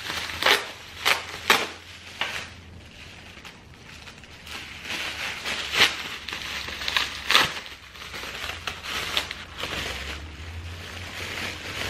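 Plastic bubble-wrap pouch crinkling and rustling as it is pulled open by hand, with sharp crackles about half a second, one second and a second and a half in, and again near six and seven and a half seconds.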